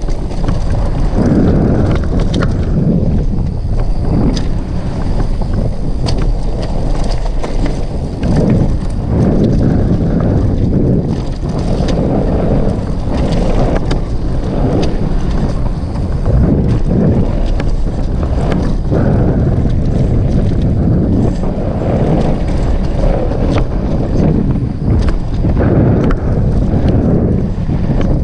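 Downhill mountain bike ridden fast down a trail, with wind buffeting the action-camera microphone and tyres rolling over dirt. Frequent short clicks and rattles come from the bike over the bumps.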